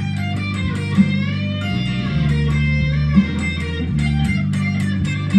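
Stratocaster-style electric guitar playing a blues lead with string bends, over held low bass notes that change every second or so.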